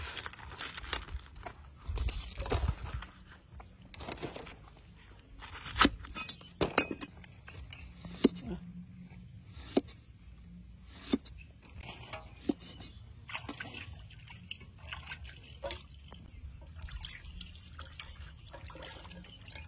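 Cleaver chopping on a wooden block, single sharp knocks a second or more apart, as a banana flower and then limes are cut. Near the end come softer small splashes and drips as lime is squeezed into a metal pot of water.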